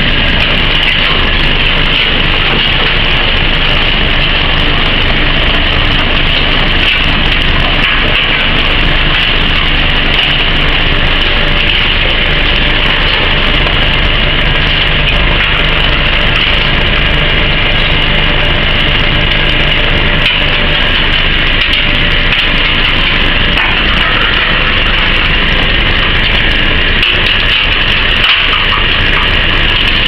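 Refrigerator and washing-machine shredder line running with a loud, steady mechanical din, as shredded metal scrap pours off the discharge conveyor onto a pile.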